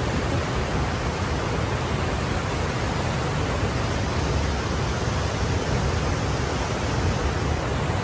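Steady, even rush of falling water from a waterfall, with no breaks.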